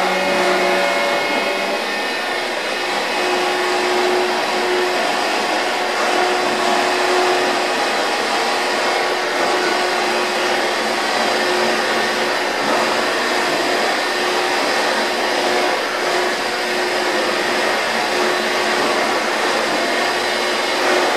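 Rosa RTSC 1000 surface grinder running: a steady mechanical whirr from its motors and wheel spindle, with a steady humming tone underneath.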